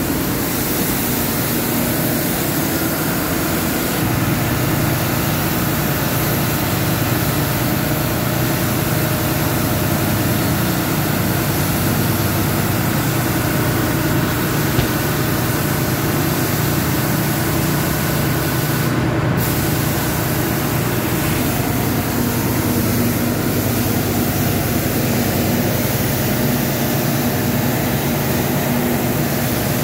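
Heavy machinery running steadily and loudly: a constant low hum under a dense hiss, with no break or change in speed.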